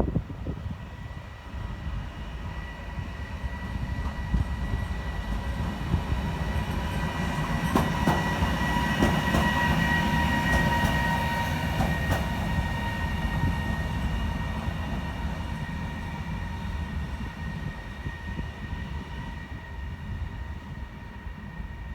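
A train passing, growing louder to a peak around halfway and then slowly fading. A steady high whine runs through it, with a few sharp clicks of wheels over the rail joints as it goes by.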